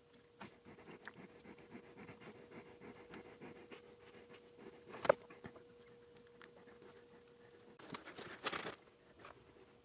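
Faint small clicks and scratches of LEDs being fitted into a through-hole circuit board by hand, with one sharper click about five seconds in and a short rustle near the end, over a faint steady hum.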